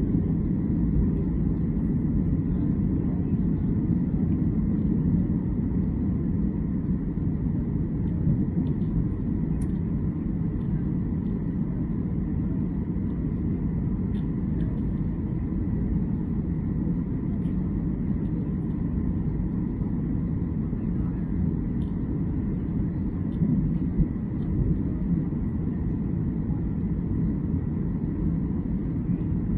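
Steady low rumble of a jet airliner's engines and rushing air, heard from inside the passenger cabin, with a faint steady whine over it. A couple of brief knocks come about two-thirds of the way through.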